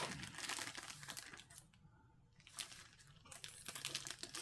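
Plastic packaging crinkling and tearing as a diamond painting kit is opened with scissors, in two spells of crackling with a short quiet gap about two seconds in.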